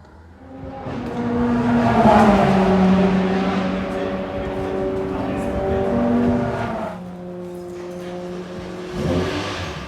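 Single-seater race car engines passing at speed on track. The loudest pass comes about two seconds in, with the pitch dropping as the car goes by, and the engine note stays strong until it fades somewhat near the end.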